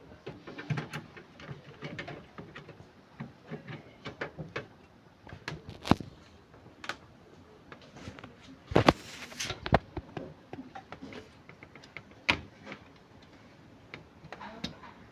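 Scattered clicks and knocks from objects being handled, with a short hiss about nine seconds in.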